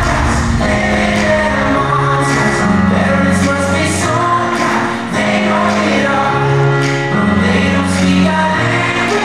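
Live pop music played loud over an arena PA, with singing over held chords.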